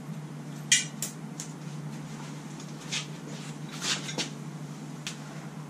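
Scattered metal clinks and clanks of bolts, washers and hand tools being handled at an engine stand's mount, about seven separate knocks over a steady low hum.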